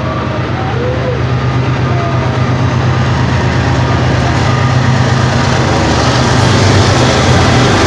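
Freight train passing close by: covered hopper cars rolling over the rails, then Ferromex diesel locomotives coming alongside, their steady low engine hum growing louder toward the end.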